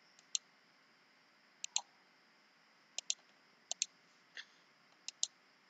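Computer mouse button clicking, about six times, most clicks a quick double sound of the button pressing and releasing.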